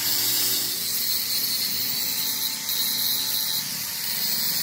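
Welding arc hissing steadily, with a faint steady tone underneath.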